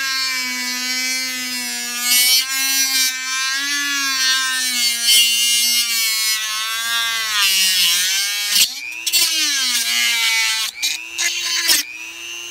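Handheld rotary tool with a small cut-off disc running at high speed, trimming off the excess end of the board. Its steady whine sags in pitch as the disc bites, dips lowest about eight seconds in, and briefly drops out twice near the end as the tool is lifted.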